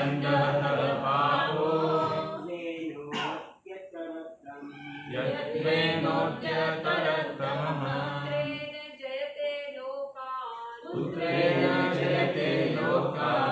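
A group of voices chanting lines of a Sanskrit verse together in unison, in three phrases with short pauses between them.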